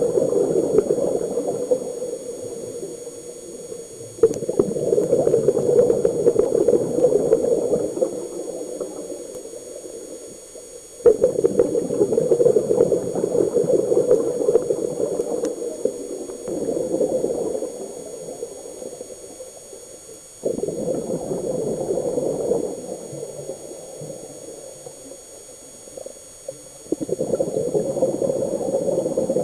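A scuba diver's exhaled bubbles rushing and gurgling underwater, heard through the camera housing. The surges come every five to seven seconds, each starting suddenly and fading away.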